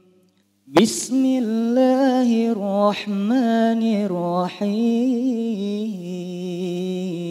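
A man chanting Qur'anic recitation (tilawah) in the melodic, ornamented style. After a brief pause he comes in sharply about a second in with sliding, wavering runs, and settles on a long held note near the end.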